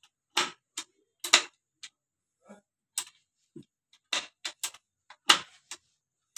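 Over a dozen sharp, irregular clicks and ticks as a hand works a fitting on a used Suzuki pickup engine that is not running.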